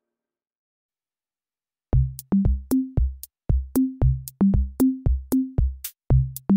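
Silence for about two seconds, then background music starts: a drum-machine beat of deep bass-drum hits that change pitch, about three a second, with sharp ticks above them.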